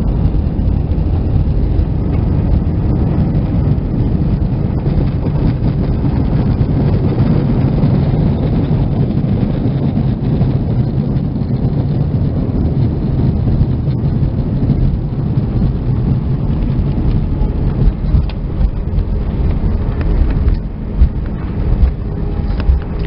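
Cabin noise of an Airbus A320 rolling along the runway after landing: a loud, steady low rumble of the engines and wheels, with a few knocks near the end.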